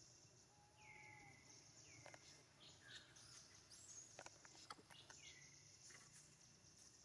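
Faint forest ambience: a steady high hiss under a few short high-pitched calls, each dropping in pitch and then holding, heard three times, with a cluster of soft clicks a little past the middle.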